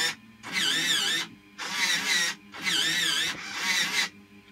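Servo driving the 3D-printed R2-D2 gripper arm out and back: four short bursts of motor whine, each under a second, with a wavering pitch, the arm moving abruptly under its controller.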